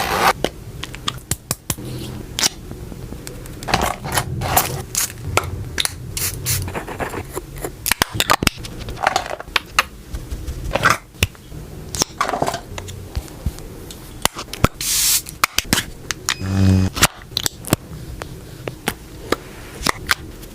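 Makeup products and tools being handled close to the microphone: a run of clicks, taps and scrapes from cases, lids and applicators. About three-quarters of the way through there is a short spray hiss, and soon after it a brief low tone.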